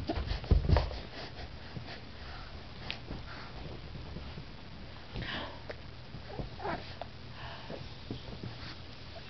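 A dog sniffing and snuffling close by in short soft puffs, with a few low thumps in the first second.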